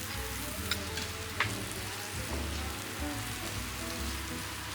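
Steady hiss of heavy rain, with two small clicks about a second in.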